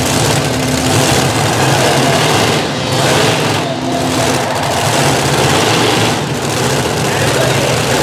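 Engines of a multi-engine Unlimited-class pulling tractor idling steadily once the pull has ended.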